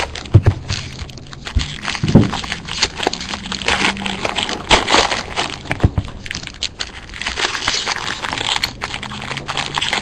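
Irregular crinkling and rustling of foil card-pack wrappers and trading cards being handled, with scattered small clicks and scrapes.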